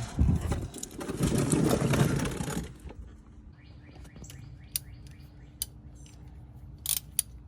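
A power tool, such as a cordless impact or ratchet, runs in one burst of about two and a half seconds, likely working a fastener on the truck's differential or oil filter. After it, a few sharp metallic clicks and clinks of tools being handled.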